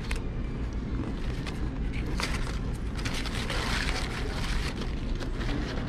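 Foil-lined paper sandwich wrapper crinkling and being crumpled by hand, densest from about two seconds in to near the end, over a steady low rumble.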